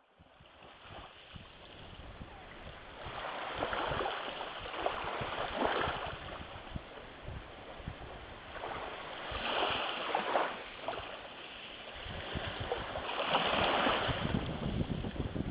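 Small waves washing up and breaking on a shingly, shell-strewn beach, the surf swelling about every four seconds. The sound fades in over the first couple of seconds.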